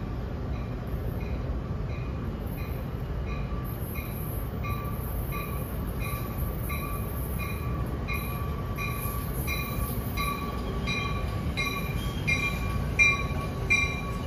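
NJ Transit electric commuter train pulling into the station: a steady rumble and a rising, steady whine grow louder as it draws alongside. A high-pitched pulse repeats about twice a second, quickening and getting louder, and there is a sharp loud hit near the end.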